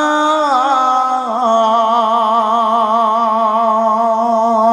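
A man's voice singing one long held note of a Bengali waz refrain, with a steady vibrato; the pitch dips and settles in the first second and then holds.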